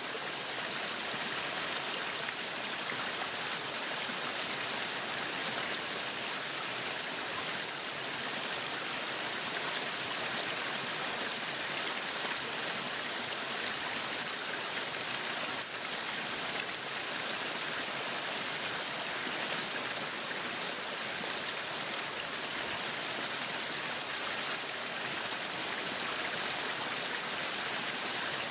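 Meat sizzling on a yakiniku grill, a steady hiss.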